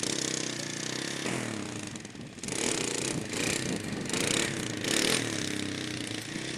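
2003 Suzuki LTZ 400 quad's single-cylinder four-stroke engine running under throttle, easing off about two seconds in, then revving up louder again.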